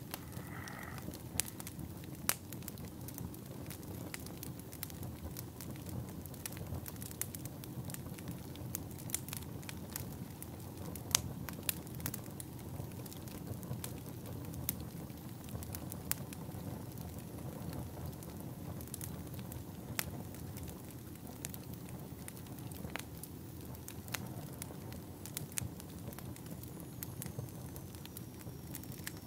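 Fire crackling steadily: a low rumble of flames, with irregular sharp pops and snaps and a few louder cracks.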